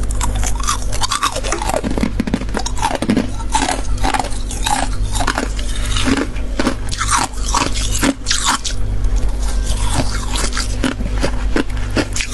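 Someone biting into and chewing freezer frost close up: a dense, irregular run of crisp crunches and crackles, over a steady low hum.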